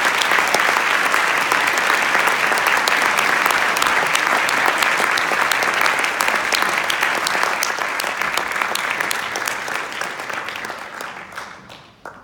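Audience applauding an award announcement: a dense clapping that holds steady, then thins and dies away over the last few seconds.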